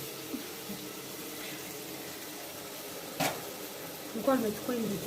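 Tomatoes sizzling in a frying pan on a gas stove, a steady hiss, with a single sharp clink of a utensil about three seconds in and a voice starting near the end.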